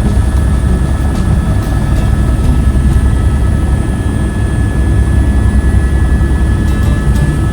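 Helicopter in flight: a steady, loud low rotor and engine drone with a thin steady whine above it.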